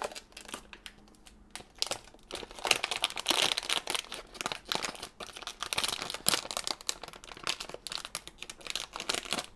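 Metallic foil blind bag crinkling and crackling as it is handled and pulled open at its seam by hand. The crackles come thick and fast from about two seconds in.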